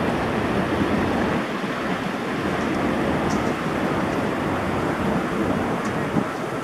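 Steady rushing of water spilling over the edge of a long fountain pool and falling into the basin below.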